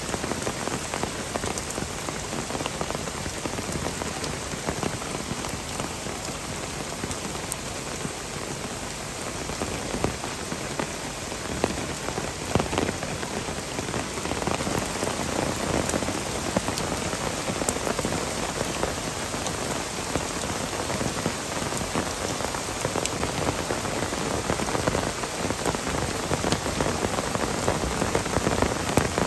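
Downpour: heavy rain falling steadily, with many small sharp drop hits close to the microphone.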